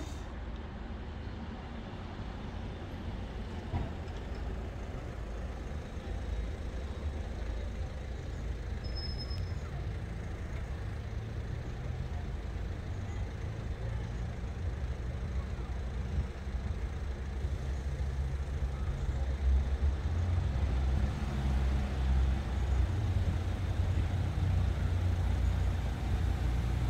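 Low diesel rumble of an approaching Class 156 diesel multiple unit, growing steadily louder, most of all over the last ten seconds or so.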